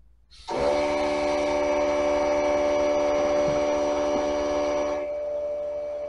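Handheld cordless electric inflator running, a steady motor whine as it pumps up a fat-bike inner tube. It switches on about half a second in, and its higher tones drop away near the end while it keeps running.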